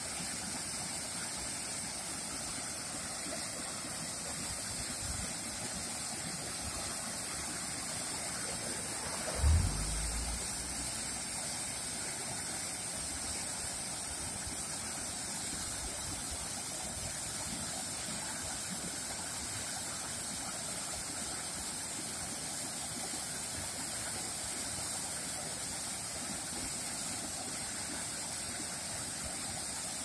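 Waterfall spilling over a rock ledge into a pool: a steady rush of water. A brief low thump about nine and a half seconds in.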